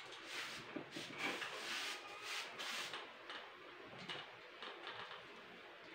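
Light clicks and rustles of a camera tripod's plastic and metal parts being handled as the mounting plate is fitted onto its head, most of them in the first three seconds.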